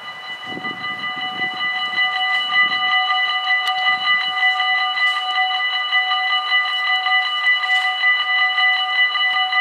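Dutch automatic level-crossing warning bells (AHOB) ringing rapidly and continuously, several pitches sounding together. They start up and grow louder over the first couple of seconds, then ring steadily while the barrier arms come down, the warning that a train is approaching.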